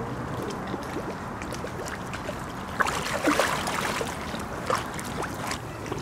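Lake water splashing and sloshing around hands working in the shallows, with a cluster of sharper splashes about three seconds in and another near five seconds, over a steady wash of wind and choppy water.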